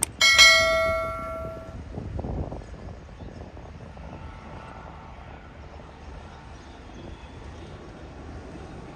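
A locomotive horn sounds one loud blast for about a second and a half, fading at the end, then a steady low rumble.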